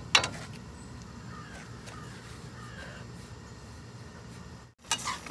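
A metal spoon clicks against a stainless steel kadai twice at the start and a few times near the end. In between, under a steady low burner rumble, crows caw faintly.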